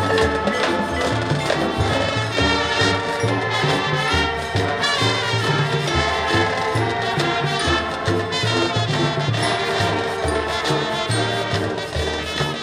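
High school marching band playing its field show: brass and front-ensemble percussion over a bass line that steps from note to note.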